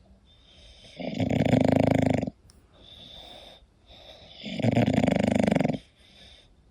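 English bulldog snoring in sleep: two loud snores about three and a half seconds apart, each lasting over a second, with a much softer breath between them. This heavy snoring is typical of the breed's short-nosed airway.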